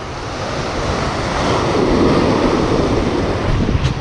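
Sea waves surging and breaking over shoreline rocks, swelling to a peak around the middle, with wind buffeting the microphone.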